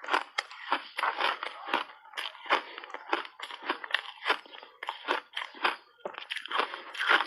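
Close-up crunching of refrozen shaved ice being bitten and chewed: a quick, irregular run of sharp crunches, several a second, with a few short pauses.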